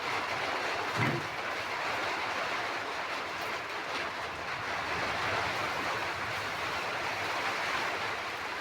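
Steady rain falling, an even hiss, with a brief low thump about a second in.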